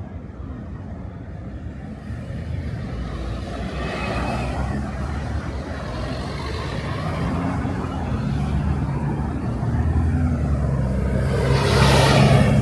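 A motor vehicle's engine approaches and passes close by, growing steadily louder and loudest near the end.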